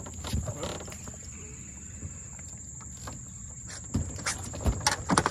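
Steady outdoor background noise with a thin, steady high-pitched whine, and a few sharp knocks and taps on the small boat about four seconds in and again near the end as the angler moves on the deck to land a hooked fish.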